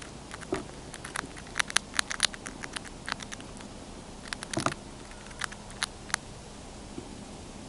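A chipmunk crunching a crisp latticed Bits & Bites cereal square: quick, sharp little crunches in clusters. They are busiest about one to two and a half seconds in and again around four and a half seconds, then thin out after about six seconds.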